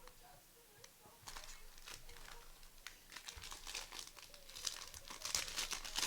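Basketball card pack wrappers being torn open and crinkled. The crackling grows denser and louder from about three seconds in.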